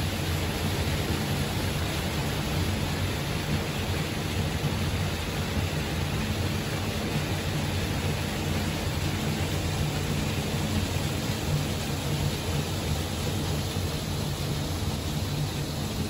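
Steady rushing hiss of a pond fountain's spray falling back onto the water, with a low steady hum underneath.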